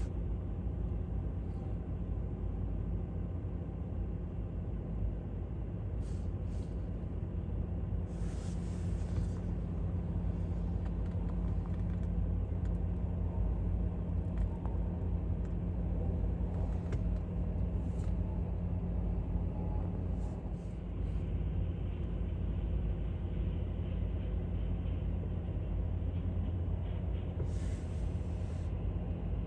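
Jet airliner engines, a steady low rumble with a constant hum, holding level with no rise or fall.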